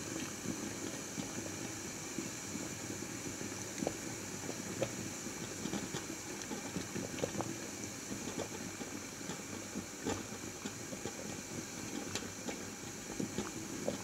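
Water at a rolling boil in an electric rice cooker: a steady bubbling hiss with frequent small, irregular pops.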